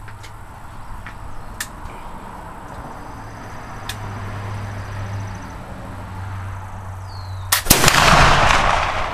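A .50-caliber flintlock rifle firing a black-powder charge about seven and a half seconds in. A short snap comes first, then the main shot a split second later, ringing on for about a second.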